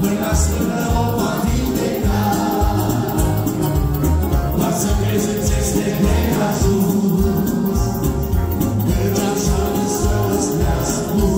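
Live amplified gospel music: a group of men singing together into microphones over two accordions and an electronic keyboard, with a steady beat.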